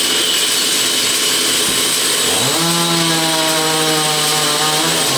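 Sawmill saw machinery running with a steady high whine and cutting noise. A little under halfway through, a machine hum rises quickly in pitch and then holds steady.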